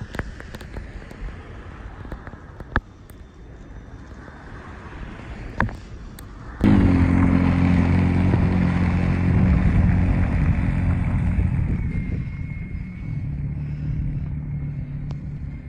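Wind rushing on the microphone, then about six and a half seconds in the EGO SNT2100 cordless electric snow blower starts running at full throttle with a steady motor hum, throwing heavy wet snow. The sound eases slightly toward the end as the machine moves away.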